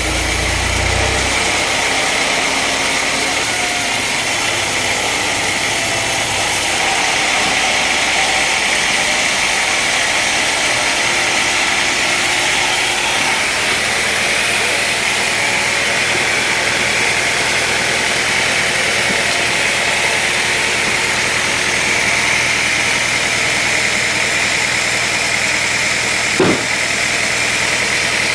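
Woodworking machinery running steadily with a constant mechanical noise. There is a heavier low rumble at the very start and a single short knock near the end.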